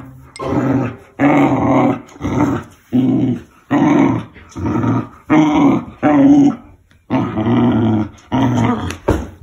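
Bernedoodle puppy play-growling while it tugs on a rope toy: about a dozen short growls, each under a second, with brief pauses between.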